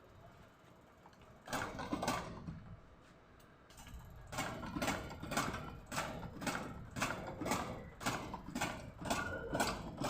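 Repeated mechanical clicks or clacks, about two a second, starting about four seconds in, after a shorter burst of clatter near the two-second mark.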